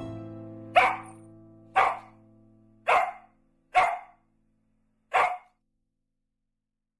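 A Coton de Tulear dog barking five times, short barks about a second apart, over the fading end of background music.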